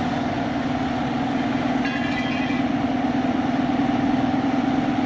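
Toyota Corolla front wheel bearing humming steadily as the wheel turns, a loud, constant drone: the bearing is worn and due for replacement.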